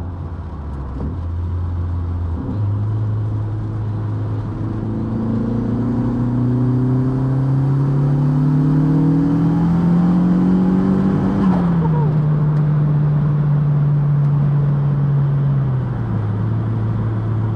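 Turbocharged 1.8T 20-valve four-cylinder of a Mk2 Golf pulling under load: after a step up in pitch about two and a half seconds in, the engine note rises steadily for about seven seconds, then falls abruptly. It runs steadily at lower revs and drops once more near the end.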